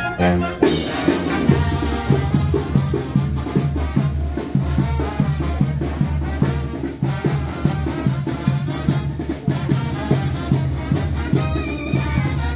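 Latin dance music with brass and drums over a steady, strong bass beat. The music changes abruptly about half a second in, into a fuller, denser section.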